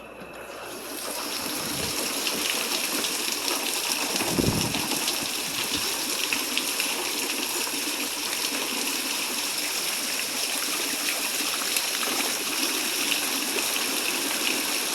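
Heavy rain pouring down, a steady hiss that swells up over the first second or so and then holds. A short low thump comes about four and a half seconds in.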